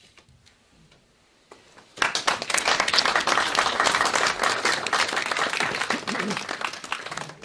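Audience applauding: after about two seconds of quiet, a crowd's hand-clapping breaks out suddenly and keeps on, thinning out near the end.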